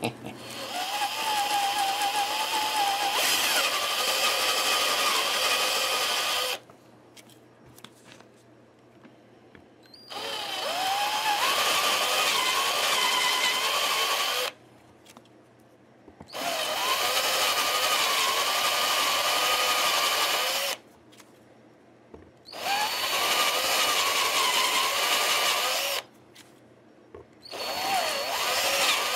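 Electric drill boring shallow holes into the Telecaster's wooden body with a tape-marked bit. It runs five times, each run a few seconds long with brief pauses between. Its whine wavers in pitch as the bit loads and eases.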